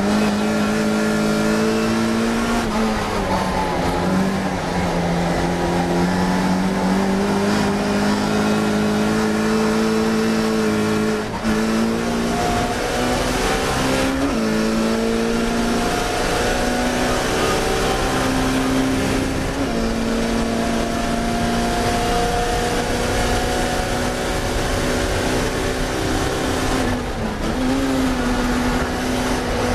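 Classic Mini race car's engine running hard at racing speed. Its pitch climbs and falls as it revs, with a brief break in the note a few times where the gears change, over a steady rushing noise.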